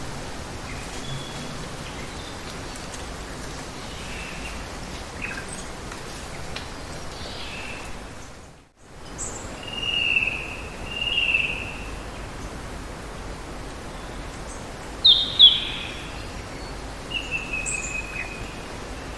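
Birds calling over a steady hiss of falling water: two drawn-out chirps about a second apart just after the middle, two sharp louder calls a little later, then a falling whistle near the end. The background cuts out for a moment near the middle.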